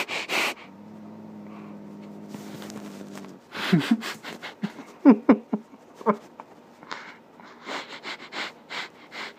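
A person sniffing loudly and rapidly at a cat's fur with nose and microphone pressed into it: a quick run of sniffs at the start and another from about seven seconds in. In between, a low steady hum, then a few short pitched sounds.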